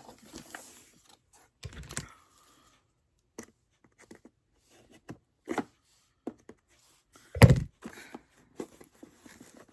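Hands working at a tabbed cardboard box to get it open: scattered light clicks, taps and scrapes, with one heavier thump about seven and a half seconds in.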